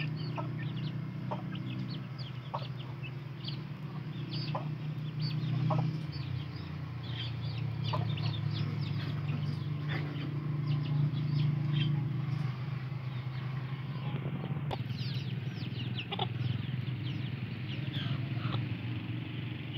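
Young aseel chickens peeping: many short, high-pitched calls that slide down in pitch, several a second and overlapping, over a steady low hum.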